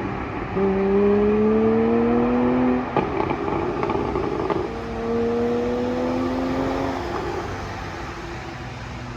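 Porsche 718 Boxster GTS 4.0's flat-six exhaust pulling in two long rising accelerations, with a short burst of exhaust pops and crackles on lift-off between them from an ECU tune set up for overrun pops. It fades away near the end.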